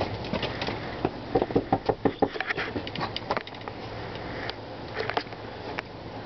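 Aluminium storm door being knocked on and its handle rattled: a quick flurry of sharp taps and clicks about a second in, lasting a couple of seconds, then a few scattered knocks near the end, over a steady low hum.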